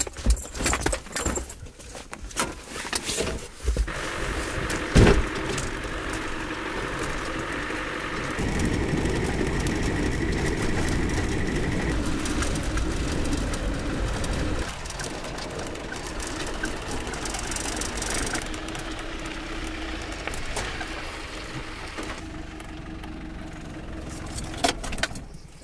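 A few clunks and knocks and one sharp bang about five seconds in, then a truck's engine and road noise running steadily while driving, heard from inside the cab. The drone is loudest for a few seconds in the middle.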